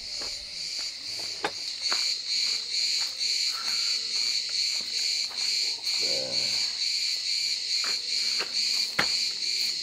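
A dense summer insect chorus, pulsing evenly several times a second, with a few sharp wooden knocks from a folding wooden table being carried and set up, mostly near the end.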